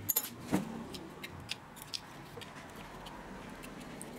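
Scattered light clicks and taps, the loudest two in the first second, from fingers and a small metal tool handling the paper insulating sleeve, switch and wiring inside an old corded drill's open metal handle.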